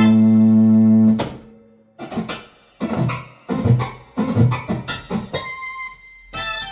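Philips Philicorda 22GM755 valve organ played with spring reverb: a loud held chord stops about a second in with a sharp click, then a run of short detached notes and chords, each dying away quickly, with a held higher note near the end.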